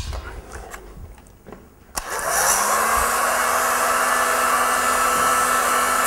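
A few light clicks and knocks, then about two seconds in a Bosch heat gun is switched on: its fan motor hum rises briefly as it spins up and settles into a steady whirr with rushing air, heating a heat-shrink sealed crimp connector.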